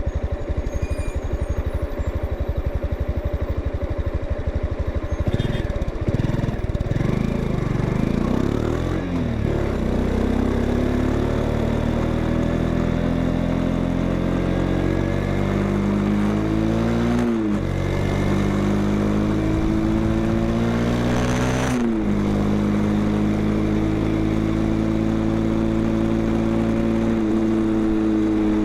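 Honda XRE 190's single-cylinder four-stroke engine heard through its exhaust. It idles with an even pulse, then revs and pulls away, its pitch climbing slowly through two gears with a sudden drop at each upshift, about halfway through and again about three-quarters through. After that it holds a steady higher note.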